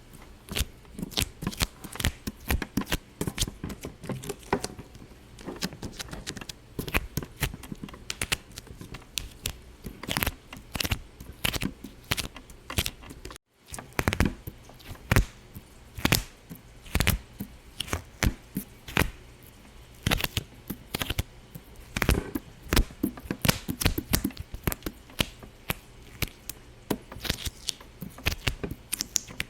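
Rapid, irregular popping clicks, several a second, going on steadily, with a brief total dropout about 13 seconds in.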